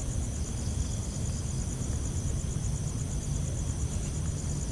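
Night insects chirping in a steady, rapid, evenly pulsed high trill, over a constant low rumble.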